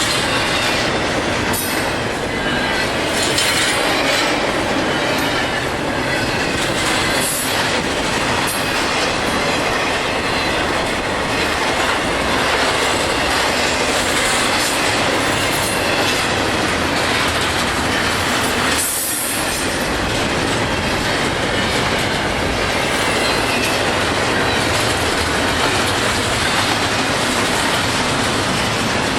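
Freight train cars rolling past on the rails: a steady, loud rumble and clatter of steel wheels, which briefly dips about two-thirds of the way through.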